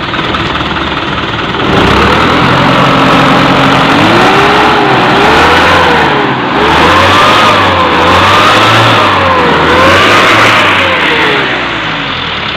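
Vehicle engine running, getting louder about two seconds in and then revved up and down over and over, its pitch rising and falling several times before easing off near the end.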